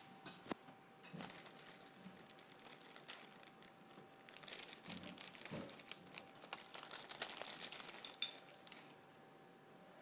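Thin plastic zip-top bags being handled and crinkled, with a couple of sharp clicks about half a second in and a dense spell of crinkling from about four to eight and a half seconds in.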